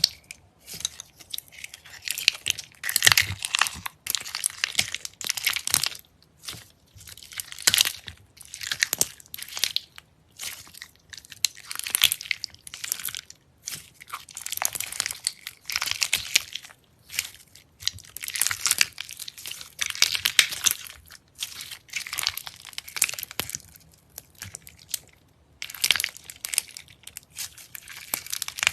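Crunchy slime being pressed and squeezed by hand, giving repeated crackly, crunching bursts, each under two seconds long, with short pauses between.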